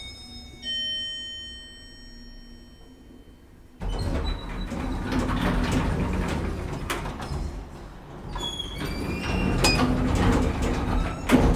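Elevator arrival chime in the car of a 1998 Deve-Schindler hydraulic elevator, a falling two-note ding-dong that rings out over about three seconds. About four seconds in the car's sliding doors open with a sudden rush of noise and clatter, ending in a sharp click near the end.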